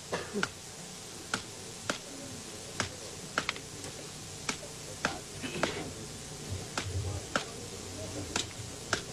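Irregular sharp clicks and taps, one every half second to a second or so, of things being handled on a woven bamboo tray.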